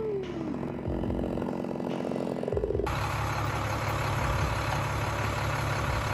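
A pitched motor sound, one tone falling in pitch near the start, then an abrupt switch about three seconds in to a steady, heavy engine running with a low rumble.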